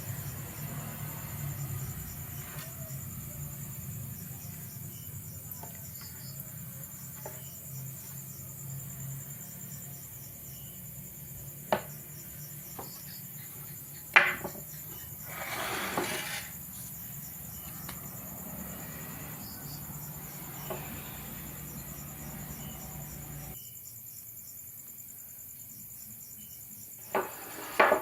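Insects chirping in a steady, evenly repeating rhythm, with a few sharp knocks and a low hum that cuts off suddenly near the end.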